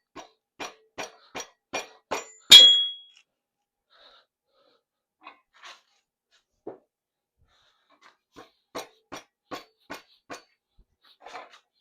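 Rubber mallet tapping around a Honda K24's bearing girdle to break its sealant from the block: a run of dull knocks about two and a half a second, a sharp metallic clink with a brief ring about two and a half seconds in, scattered knocks, then another even run of knocks near the end.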